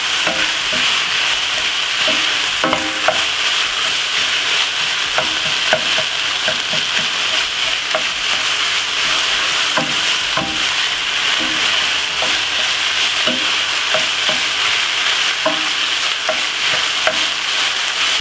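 Minced beef with onions sizzling steadily as it browns in a frying pan, stirred with a wooden spoon that knocks and scrapes against the pan at irregular moments.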